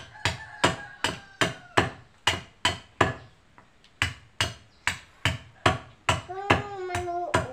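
Steady, regular knocking, about two or three blows a second with a short pause near the middle: a wedge being hammered into a handle joint to lock the handle so it won't pull out.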